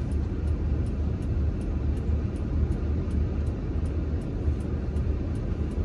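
Inside a car creeping slowly over a snow-covered road: a steady low rumble of engine and tyres, with the hazard-light flasher ticking evenly, about two to three ticks a second.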